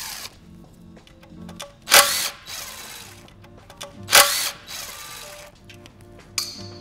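Cordless drill/driver with a T30 Torx bit spinning out oil pan bolts in two short bursts, about two seconds in and again about four seconds in, over background music.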